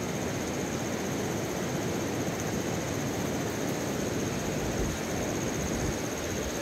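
Tropical forest ambience: a steady rushing noise with insects droning high and constant.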